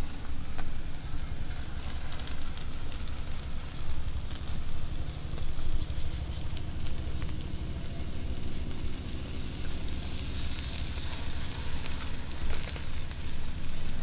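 Whole fish sizzling and crackling on a wire grill over wood-fire embers as they are turned, with many small pops, over a steady low rumble.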